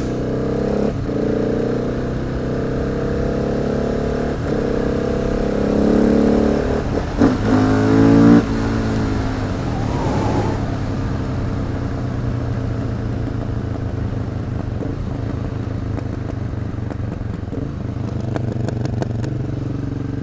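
Husqvarna 701 supermoto's single-cylinder engine running while the bike is ridden. About seven seconds in it revs up quickly under throttle, then cuts off sharply and settles back to a steady, lower run.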